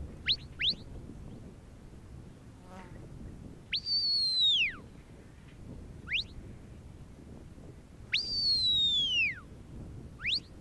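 Sheepdog handler's whistle commands to a working border collie: two quick rising chirps, then a long note that slides down, a short rising chirp, a second long falling note, and a final rising chirp.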